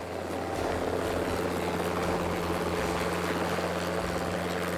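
Helicopter sound effect: a steady rushing rotor and engine noise that swells in over the first half-second and then holds even.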